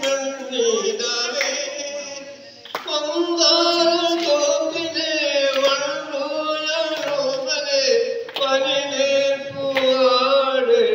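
A man singing a slow melody into a microphone, amplified through a PA loudspeaker, with long held, wavering notes and short pauses between phrases.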